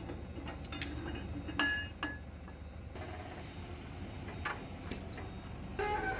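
Steel-on-steel clinks with a short metallic ring as a bar works the pivot pin in an excavator bucket's bush, a few light taps and two louder strikes about one and a half and two seconds in. A steady low engine rumble runs underneath.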